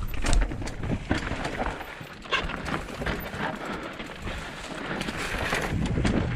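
Mountain bike riding fast over rough, rocky trail: tyres crunching and knocking on stones, with rapid rattles and clatter from the bike, and wind rumbling on the microphone.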